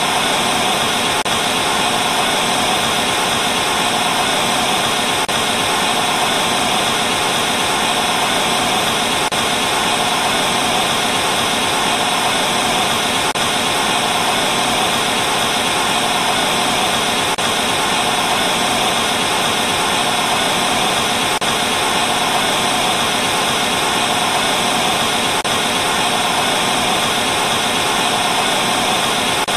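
Steady, unbroken TV static hiss, the no-signal noise of a television, with a faint tick about every four seconds.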